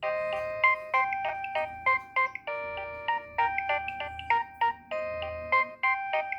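Nokia 3120 mobile phone ringtone starting suddenly: a synthesized polyphonic melody of held chords with quick repeated notes on top, in a steady beat.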